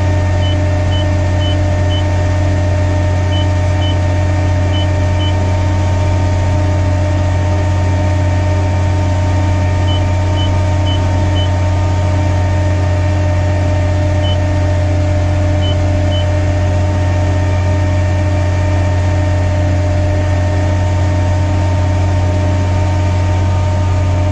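Carry deck crane engine idling steadily, heard from inside the cab. Over it come short high beeps, about two a second, in several brief groups during the first half: the anti-two-block alarm sounding as the switch at the boom tip is tripped by hand for the daily test.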